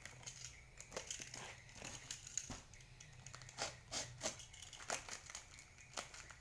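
Yellow utility knife slicing through packing tape and cardboard on a parcel, with irregular crinkling, scraping and tearing. Near the end the cardboard end of the box is pulled open.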